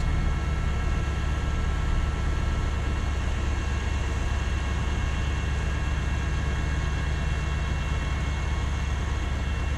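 Heavy boom wrecker's diesel engine running steadily: a low, even drone with faint steady whining tones above it.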